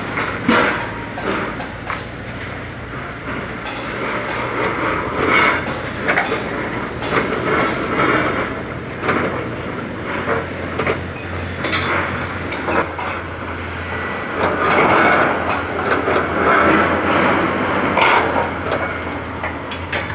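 Heavy steel-working machinery running with a steady low hum that grows stronger about halfway through, with irregular sharp metallic clanks and knocks throughout.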